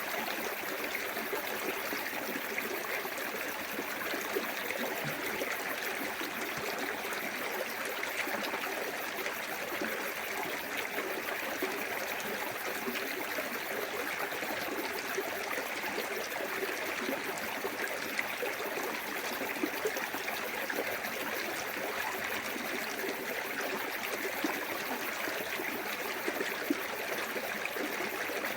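Small waterfall in a clear woodland stream: water running and splashing steadily over rocks, with fine trickling and gurgling detail.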